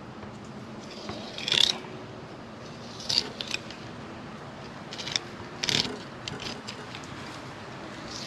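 Deba knife blade scraping along a yellowfin tuna's backbone and rib bones in several short strokes, the loudest about a second and a half in.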